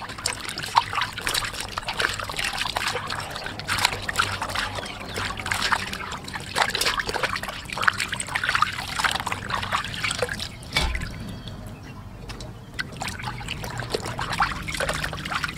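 Water splashing and sloshing as hands scrub and knead raw pig skin in a stainless steel basin of water, with a quieter stretch about two-thirds through before the splashing picks up again.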